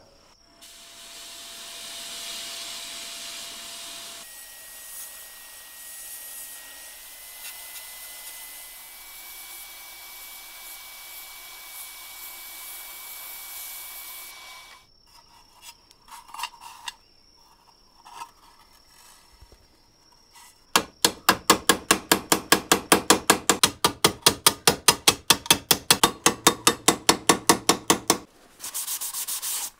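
Abrasive blasting in a sandblasting cabinet: a steady hiss of grit against the rusty sheet-steel lamp body for about fourteen seconds. Later, after a short pause, a small hammer strikes the sheet-metal housing held against a steel bench vise, fast and even at about five ringing blows a second for some seven seconds.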